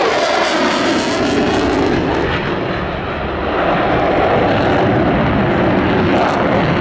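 Jet noise from a Turkish F-16 fighter's General Electric F110 turbofan as the jet flies past in a hard turn, a steady heavy rushing rumble that dips slightly about three seconds in and then swells again.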